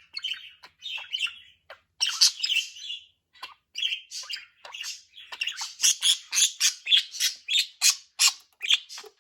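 Pet budgerigar chirping and chattering. Scratchy warbles are followed, from about halfway through, by a quick run of loud, sharp chirps at two or three a second.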